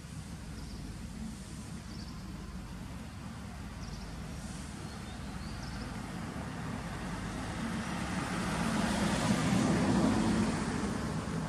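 A road vehicle passing by: a steady low rumble that swells to its loudest about nine to ten seconds in and then fades.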